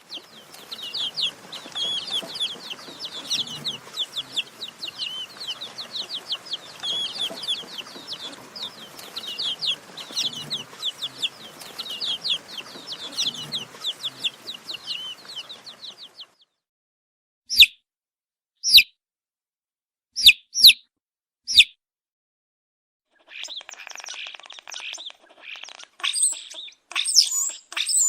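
Baby chicks peeping: a dense, continuous chorus of short, high, falling peeps. Partway through it stops; a handful of loud single peeps follow with silence between them, and then a flock peeps again near the end.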